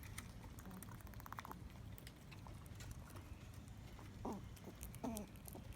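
Squirrel vocalising while it feeds: a quick rattle of clicks about a second in, then two short calls that fall in pitch near the end.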